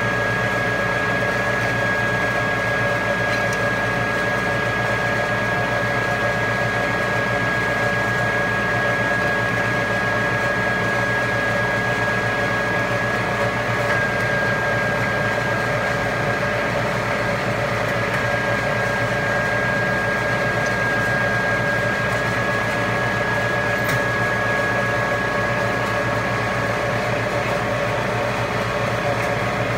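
Supermax YC-2VAS vertical milling machine running under power: a steady mechanical hum with a high, even whine that shifts slightly in pitch a few times.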